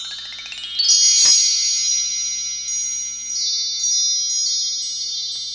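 Shimmering chimes: a quick rising sweep of tinkling high notes, then bright chime notes struck every half second or so and left to ring over one another, the loudest about a second in.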